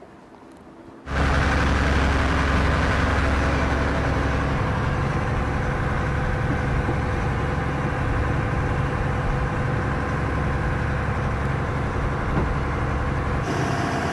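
Fishing boat's inboard engine running steadily while the boat is under way, cutting in abruptly about a second in.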